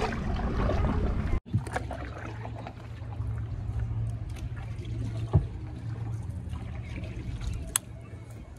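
Water trickling and lapping against the hull of a wooden gondola as it moves along a canal, over a steady low hum. There are a couple of short knocks, and a brief dropout about a second and a half in.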